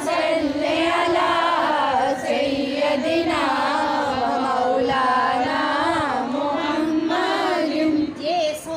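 A high voice singing a slow melody in long, ornamented held notes, without any beat.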